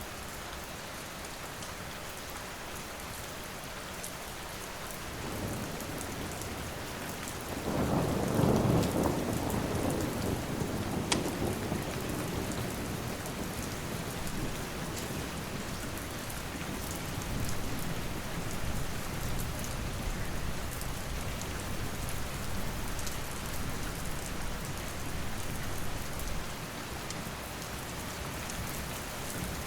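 Steady rain falling, with a roll of thunder that swells about five seconds in, is loudest around eight to nine seconds, and then rumbles on under the rain. A single sharp snap stands out about eleven seconds in.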